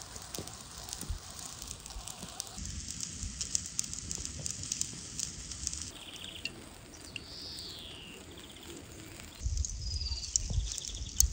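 Embers crackling and sizzling under a large whole fish grilling in a wire-mesh cage, with scattered sharp pops. Birds call in the middle: a short trill, then a falling whistle, and a brief call near the end.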